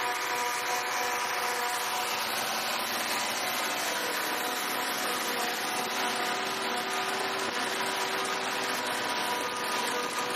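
Farm machinery running steadily: an even hiss with a few held tones.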